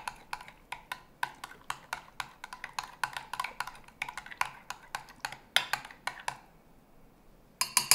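A utensil stirring a mayonnaise dressing in a bowl, clicking against the bowl about four times a second. The clicking stops about six seconds in, and a few more knocks come just before the end.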